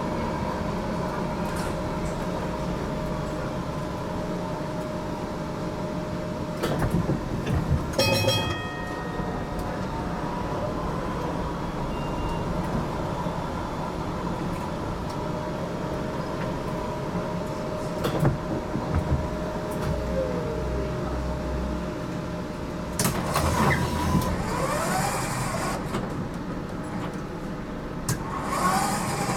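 GTL8 tram running on its rails, with a steady hum and whine from its electric drive over the rumble of wheels on track. There is a short rapid ringing about eight seconds in, and the whine rises in pitch twice in the later part of the run.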